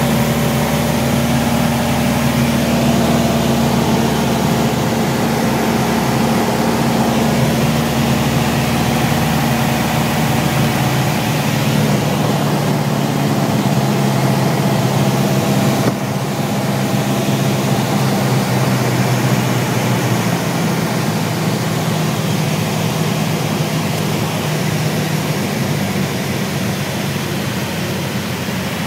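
Piper light aircraft's piston engine and propeller droning steadily, heard inside the cabin on the approach to land. The engine note shifts a little partway through and the sound drops slightly in level just past halfway.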